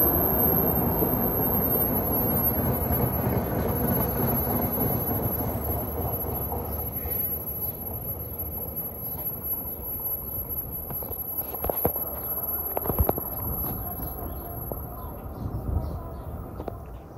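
NJ Transit commuter train of single-level Comet coaches moving away down the track, its rumble of wheels on rail fading steadily as it recedes. A few sharp clicks near the end.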